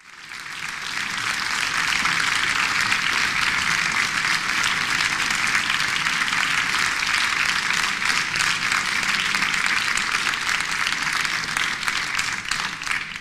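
Theatre audience applauding, a dense steady applause that swells in over the first couple of seconds and thins out to a few last claps at the end.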